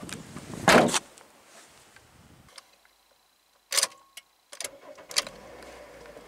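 A car's tailgate is slammed shut about a second in. Near the end, the Toyota Wish's 1.8-litre inline-four petrol engine cranks and catches, then settles into a steady fast idle after a cold start.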